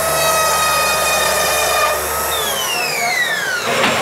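Mafell electric saw running with a steady whine as it cuts wood-fibre insulation board. A little over two seconds in it is switched off, and the whine falls in pitch as the motor runs down, followed by a short knock near the end.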